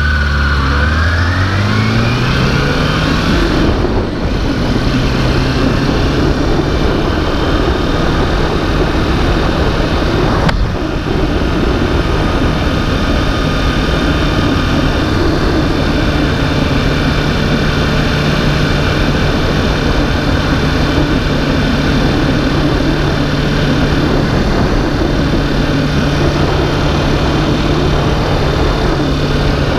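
Backhoe's engine revving up over the first three seconds, then running steadily at high revs under load, with a dense rumbling noise.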